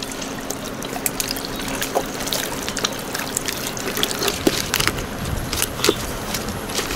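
Water trickling and splashing, with many small scattered clicks.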